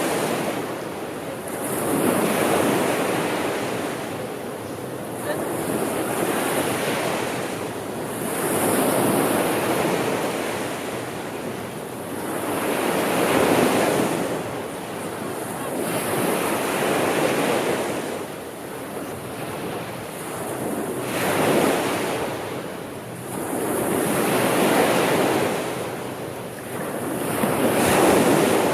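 Sea waves breaking and washing in, each wave swelling up and then fading, about one every three to four seconds.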